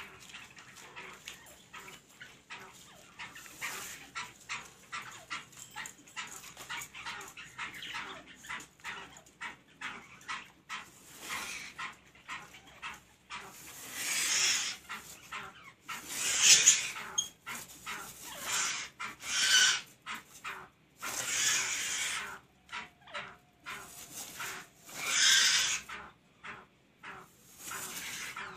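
Black francolins calling: a quick run of soft clucking notes, then several louder calls of about a second each in the second half, the excited calls of birds displaying to one another.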